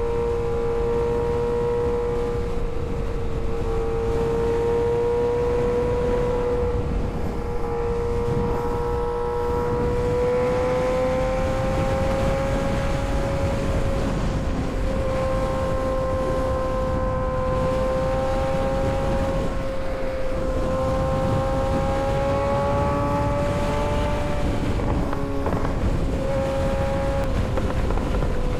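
Kawasaki ZX-6R 636 inline-four sport bike engine running at a steady high pitch while riding, the note slowly climbing, dipping briefly near the end and rising again, with wind rushing over the microphone.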